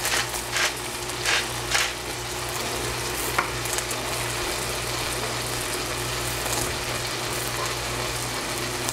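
Eggplant pieces frying in oil in a stainless steel saucepan, a steady sizzle. Four short scratchy strokes in the first two seconds as salt and pepper are added, and a low steady hum underneath.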